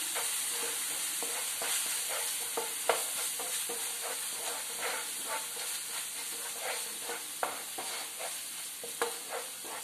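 Spiced onion-tomato masala paste sizzling in oil in a nonstick frying pan while a wooden spatula stirs and scrapes it: a steady hiss with frequent short scraping strokes. The paste is being sautéed until the raw smell of the spice powders is gone.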